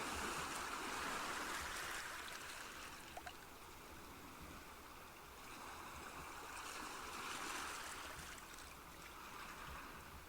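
Rushing water, a steady hiss that swells and fades twice.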